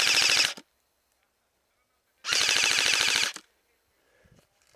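Airsoft rifle firing on full auto in two bursts: one cutting off about half a second in, then a second burst of about a second some two seconds later.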